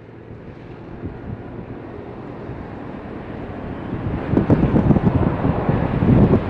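A Boeing 737-800's CFM56 turbofan engines on landing approach, a rumble that grows steadily louder, with wind on the microphone.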